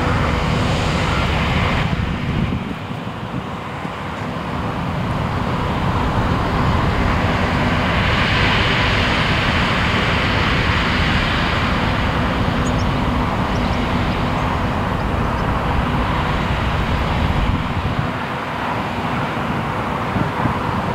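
Claas Lexion 600TT combine harvester running steadily at working speed, a dense engine and machinery noise whose level dips briefly about two seconds in and again near the end.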